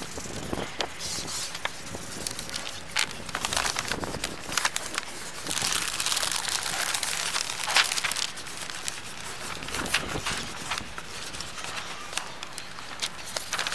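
Paper rustling and crinkling as it is handled, on and off, with scattered sharp clicks and a longer stretch of rustling about six seconds in.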